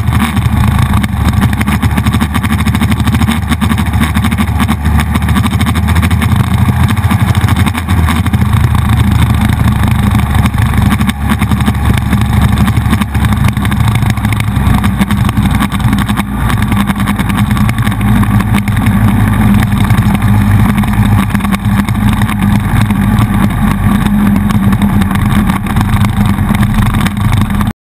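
Buell XB9SX's air-cooled V-twin engine running steadily at road speed, with heavy wind noise on the handlebar-mounted camera's microphone. The sound cuts off suddenly near the end.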